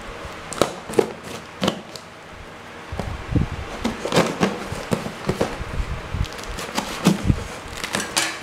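Kitchen knife slitting the packing tape on a cardboard box while the box is handled, making irregular scratches, taps and crackles of tape and cardboard.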